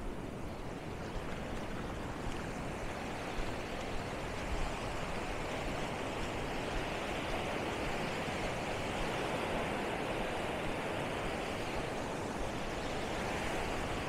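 Small waves washing up and breaking along a sandy beach: a steady rushing hiss of surf.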